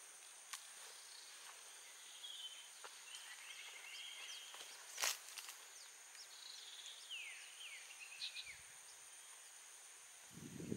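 Faint swamp ambience: a steady high-pitched insect drone, with several bird calls of short trills and downward-sliding chirps in two spells. A single sharp click about five seconds in is the loudest sound.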